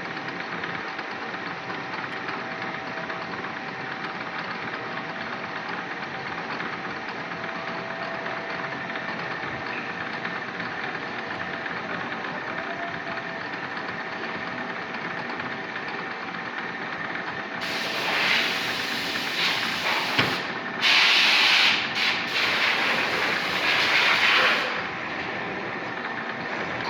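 Manual milling machine running steadily with a faint whine. About two-thirds of the way through, a much louder hissing noise comes and goes in spurts for several seconds, then stops.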